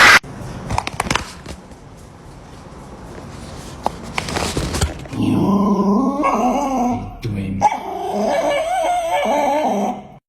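A dog whining and yowling in two long, wavering drawn-out cries in the second half, after a sudden loud noise right at the start.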